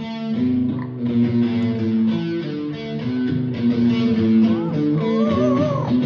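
Electric guitar played through a small amp: a riff of held single notes and chords. About three-quarters of the way through, a higher, wavering voice that rises and falls joins in over the guitar, the Amazon parrot calling along.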